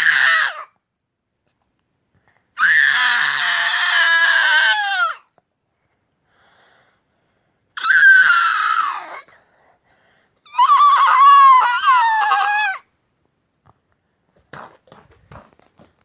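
A young boy screeching high-pitched pretend dinosaur roars: the tail of one, then three more, each lasting about two seconds with short pauses between them. Faint small mouth sounds follow near the end.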